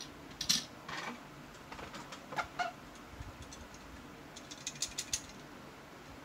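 Light clicks and taps from a small diecast model car being handled: a few separate ticks, then a quick run of clicks near the end.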